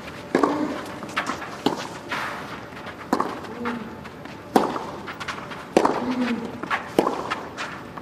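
Tennis rally on a clay court: racket strikes on the ball about every second and a half. Several shots are followed by a short grunt from the player hitting.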